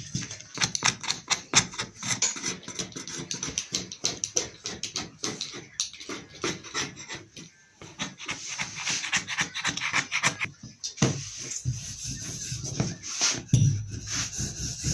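Rubbing, scraping and clicking of a plastic fondant smoother and knife worked over fondant on a cake board. From about eleven seconds in, a wooden rolling pin rolls out fondant on the table with a lower rubbing sound.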